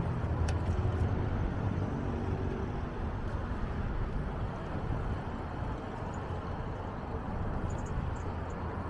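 Street traffic noise heard from a moving bicycle: a steady road rumble, with a motor vehicle's engine hum fading away over the first couple of seconds.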